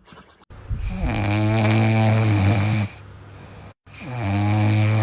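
Dog snoring: two long, loud snores of about two seconds each, with a steady low pitch.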